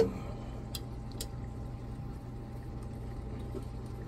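Two short metal clicks about a second in as a marine seawater pump is lined up against its gasket and mounting on a diesel engine, over a steady low hum.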